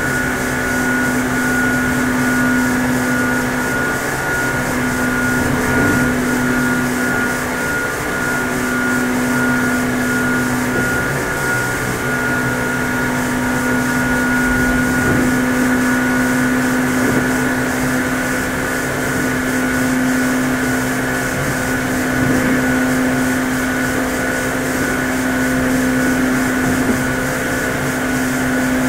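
Meitetsu 6800 series electric train running at a steady speed: an even hum from the motors and gears over wheel-on-rail rumble, holding one pitch throughout.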